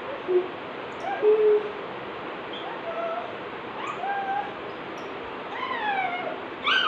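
A young child's voice making short wordless sing-song sounds: separate hoots and little calls, the last few sliding down in pitch. A steady hiss runs underneath.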